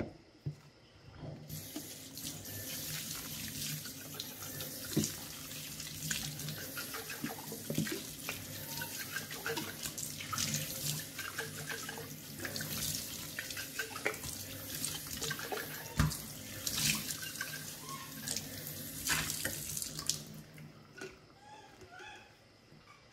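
Kitchen tap running into a stainless steel sink while a plastic baby bottle is rinsed under it, with occasional knocks of the bottle and its parts against the sink. The water comes on about a second and a half in and shuts off a few seconds before the end.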